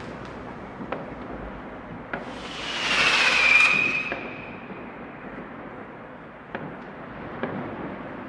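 New Year's Eve fireworks: scattered firecracker bangs, some near and some distant, over a steady rumble of far-off explosions. About two and a half seconds in, a firework's hiss with a whistle swells loud and fades out over about a second and a half.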